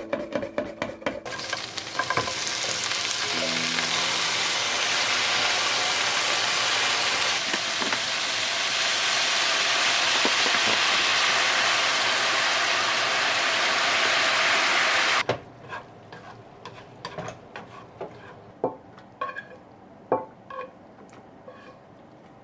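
A second of rapid clicking from a vegetable slicer, then lotus root and carrot sizzling loudly as they are stir-fried in a frying pan. After about fifteen seconds the sizzle cuts off suddenly and a few light taps and scrapes follow as the stir-fry is tipped into a container.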